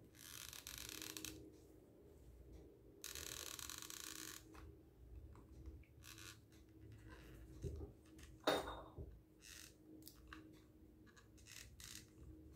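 Quiet handling sounds of black fabric and a sand-filled plastic bottle while hot-gluing: two stretches of soft rustling in the first few seconds, small scattered clicks, and one sharp crackle about eight and a half seconds in.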